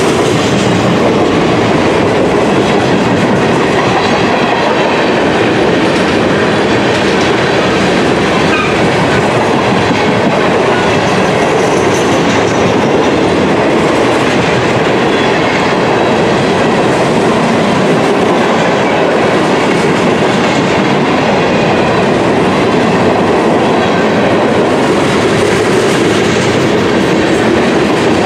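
Freight train cars rolling past close by: steel wheels running on the rails in a steady, loud noise that does not change for the whole stretch.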